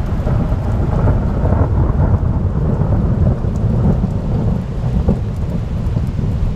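Long rolling thunder from a nearby thunderstorm, a deep rumble that holds throughout, with rain falling.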